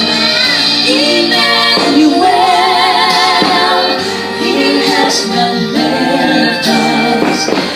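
Music: a woman singing a slow song, her held notes wavering in vibrato.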